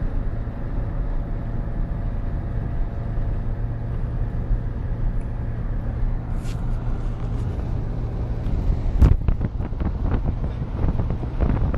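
A moving vehicle's engine running steadily at speed, with wind on the microphone. A sharp thump about nine seconds in, the loudest moment, is followed by a few lighter knocks.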